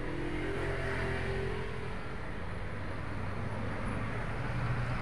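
Steady background traffic noise with a low engine hum that grows a little stronger near the end.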